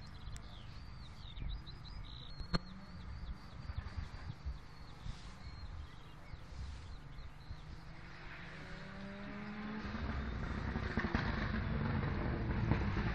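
Ford Sierra Cosworth rally car's turbocharged four-cylinder engine approaching, faint at first and then growing steadily louder and rising in pitch as it accelerates over the last five seconds. Birds chirp faintly before the car is heard.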